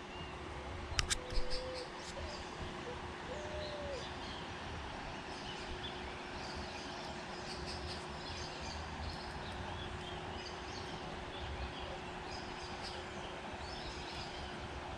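Outdoor ambience with many small birds chirping throughout over a steady low hum. There are a few sharp knocks about a second in, and two short low calls in the first few seconds.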